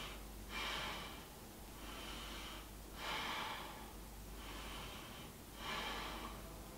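Faint, slow breathing of a person holding a yoga pose: a few soft inhales and exhales, each swelling and fading over a second or so.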